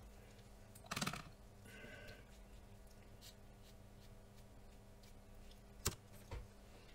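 Faint handling sounds of watercolour painting over a quiet room hum: a soft rustle about a second in, then two light clicks near the end as the paintbrush is put down by the palette.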